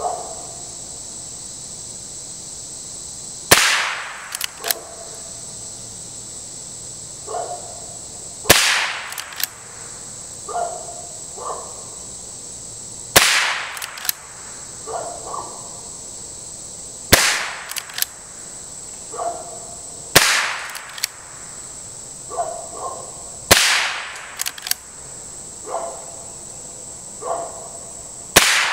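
Henry Golden Boy .22 LR lever-action rifle firing aimed shots, seven sharp cracks about one every four seconds, the last right at the end. After each shot comes a quick metallic clack-clack as the lever is worked to chamber the next round. A steady high insect drone runs underneath.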